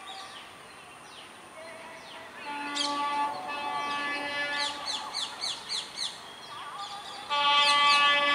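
A train horn sounds twice: a steady blast of about two seconds, then a louder one starting near the end. Birds chirp throughout with quick falling calls, several in a row between the blasts.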